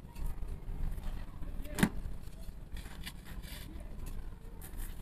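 A wooden spatula knocking once, sharply, on the metal top of a wood-fired drum stove about two seconds in, with light scraping as flatbread is turned on it, over a low steady rumble.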